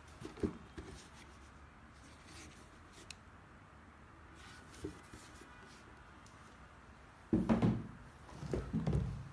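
Cardboard shoebox being handled by gloved hands, with a few soft knocks. Two louder bursts of handling noise near the end as the box is moved aside.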